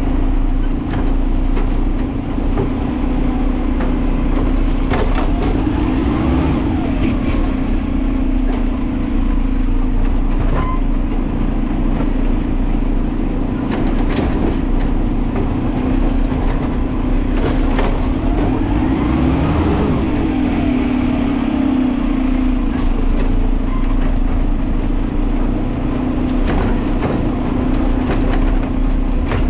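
Side-load garbage truck running with a steady drone, with two whines that rise and then fall about thirteen seconds apart and scattered knocks and clanks.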